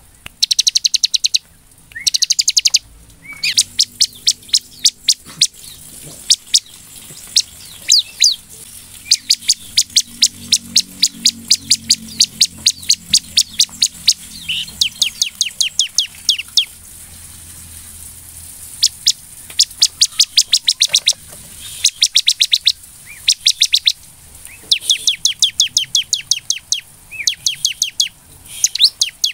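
Bar-winged prinia (ciblek) singing in full, energetic song: rapid runs of sharp, high chirps, about eight to ten notes a second, each run lasting a second or two and repeated after short pauses.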